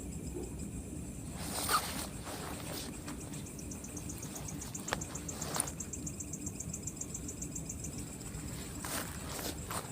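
Night insects chirring steadily in the forest, with a rapid pulsing trill from one of them starting a few seconds in and stopping near the end. There are a few short rustles and one sharp click.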